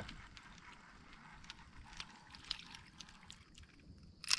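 Quiet small drips and light water ticks around a kayak, with a brief louder splash about four seconds in as a fishing bobber and line are pulled out of the water.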